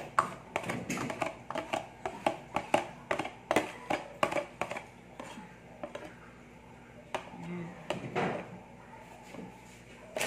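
Metal spoon scraping and knocking against a plastic container as a thick cream mixture is scooped out. Quick clicks come several times a second for the first half, then only now and then.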